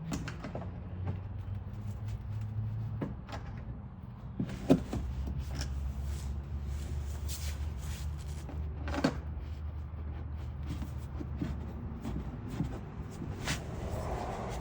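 Knocks and clicks of a hard plastic wheel well liner being worked into position against the truck's wheel arch, with two louder knocks about five and nine seconds in. A low steady hum runs underneath.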